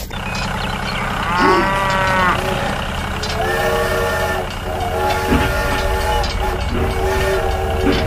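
Battery toy train's built-in sound effects. There is a rising-then-falling hoot about a second in, then three long, steady horn-like blasts with short gaps, over a low hum.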